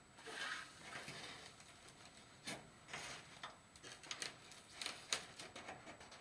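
Chicken wire rustling and scraping against foam board as it is pressed and bent into shape by hand, a string of irregular small clicks and rubs.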